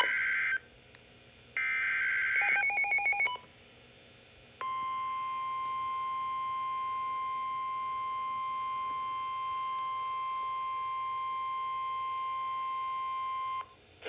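NOAA Weather Radio emergency alert coming through a weather alert radio's speaker. First come the buzzy SAME digital header bursts, two short bursts about a second apart, then a brief run of beeps. Then the steady 1050 Hz warning alarm tone sounds unbroken for about nine seconds.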